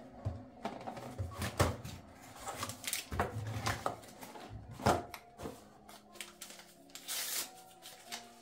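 A cardboard tea box and a paper-wrapped tea bag being handled: crisp rustling of card and paper with several sharp clicks and taps, and a short tearing sound about seven seconds in as the sachet is opened.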